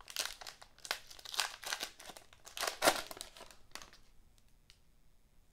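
Foil-lined trading-card pack wrapper being torn open and crinkled by hand, a rapid run of crackles that stops about four seconds in.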